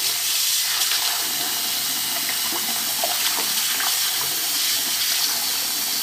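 Kitchen tap running steadily into a pot of oxtail pieces in a sink, water splashing over the meat as it is rinsed by hand.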